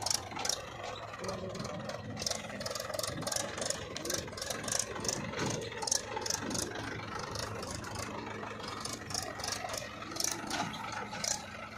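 Diesel engines of a backhoe loader and a tractor running at work, a steady hum with frequent sharp rattling clicks.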